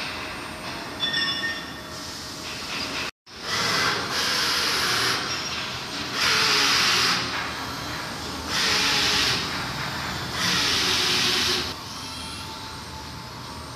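Woodworking three-row boring machine running. Its hum is broken by four bursts of hiss, about two seconds apart, as its pneumatic cylinders cycle.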